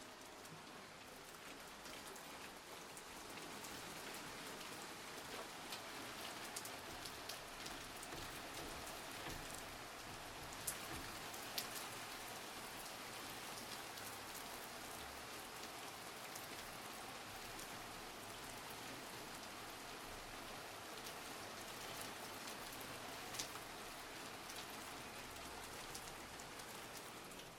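Steady rain falling on a surface, an even patter with scattered louder individual drop ticks, a few sharper ones around eleven seconds in and again near the end.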